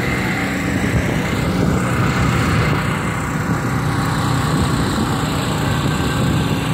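Portable generator running steadily beside a food truck, a constant low engine hum.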